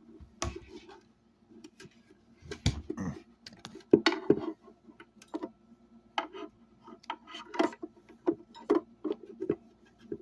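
Irregular clicks and light knocks of a screwdriver working at screws deep inside a plastic computer speaker housing.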